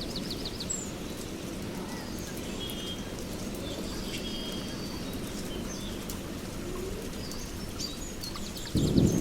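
Steady heavy rain in a forest, with several birds chirping and trilling over it: a quick series of high notes at the start, then warbling calls through the middle. Near the end a loud rumble of thunder breaks in suddenly.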